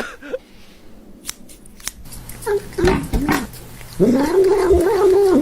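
Domestic cat meowing: a few short meows, then one long drawn-out meow from about four seconds in.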